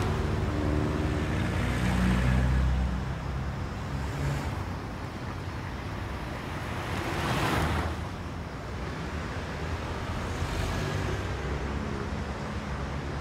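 Road traffic at night: several cars pass close by one after another, each a swelling whoosh of tyres and engine over a steady low rumble, the loudest about seven seconds in.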